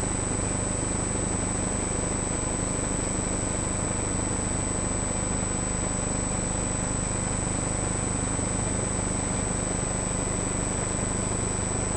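Steady machine hum under an even hiss, with a thin constant high-pitched tone; nothing starts or stops.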